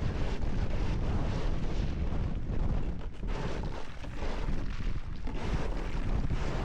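Wind buffeting the microphone, a steady low rumbling noise with uneven gusts.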